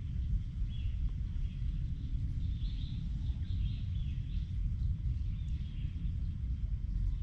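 Outdoor ambience: small birds chirping now and then in the trees over a steady low rumble.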